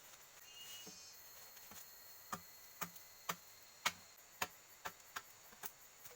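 A run of eight sharp knocks, about two a second, starting a little after two seconds in, over a steady high insect drone.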